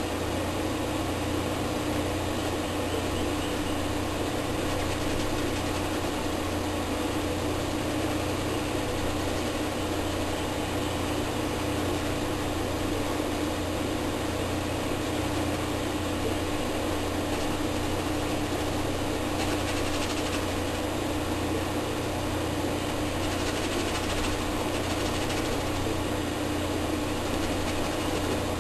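A steady low hum with a constant hiss over it, unchanging, with two faint brief scratchy sounds about two-thirds of the way through.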